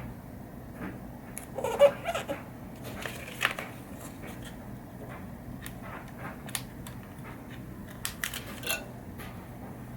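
Small clicks and crinkles from tweezers and a sheet of mylar stickers as clear leveling dots are picked off and pressed onto pinball playfield inserts. The clicks are scattered, with the loudest about two seconds in and a few more near the end, over a low steady hum.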